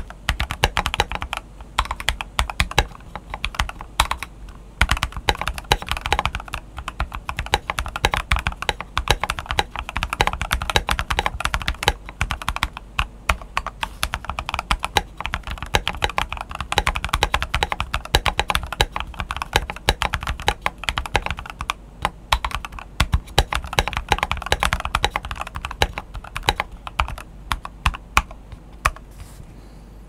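Rapid, continuous typing on a Keychron V1 mechanical keyboard with lubed Jwick Black linear switches and Akko ASA keycaps: a dense stream of keystroke clacks. The typing pauses briefly near the end.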